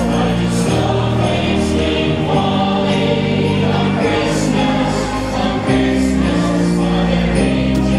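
Choir singing with accompaniment: held chords that change every second or so over a steady bass line.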